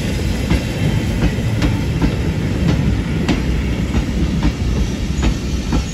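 Goods wagons and a brake van rolling slowly past: a steady low rumble of wheels on rail, with sharp clicks every half second or so as the wheels cross rail joints.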